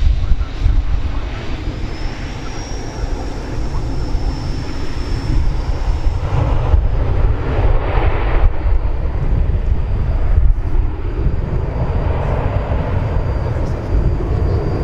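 McDonnell Douglas MD-82's tail-mounted Pratt & Whitney JT8D turbofans running in reverse thrust, with the clamshell reversers deployed during the landing rollout. A loud, steady rush of jet noise, heavy in the low end, with a thin high whine that comes in about two seconds in.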